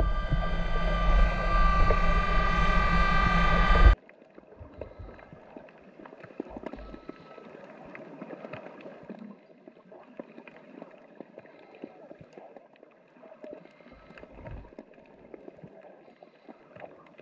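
Underwater scooter's electric motor running with a steady whine over a low rumble, cutting off abruptly about four seconds in. After that, faint underwater ambience with scattered small clicks and crackles.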